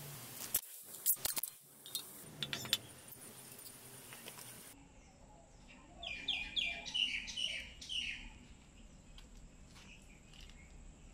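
A few sharp metal clicks and light knocks as steering-head parts are handled. About six seconds in comes a bird's quick run of short chirps, lasting about two seconds.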